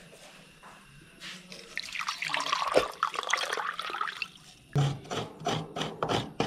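Coconut water pouring in a thin stream from a coconut into a steel pot. Near the end comes a quick run of short scraping strokes, about three a second.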